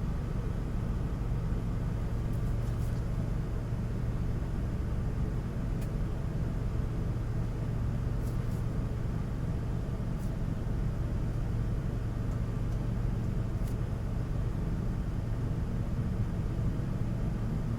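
Steady low rumbling hum that does not change, with a few faint clicks scattered through it.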